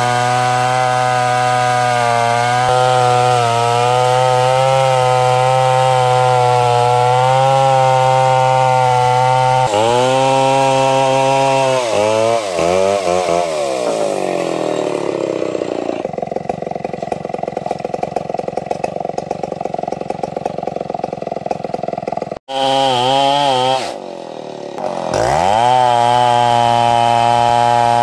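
Stihl 070 two-stroke chainsaw ripping ulin (Borneo ironwood) lengthwise into boards, the engine held steady under load with its pitch wavering. About halfway it comes out of the cut and winds down to a low, pulsing idle. After a brief dropout it revs up high, dips once, and settles back into the loaded cutting note.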